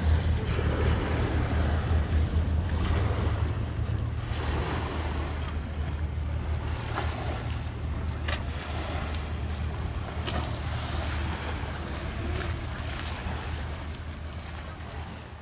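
Small lake waves lapping and splashing against a stone shoreline, with wind rumbling heavily on the microphone.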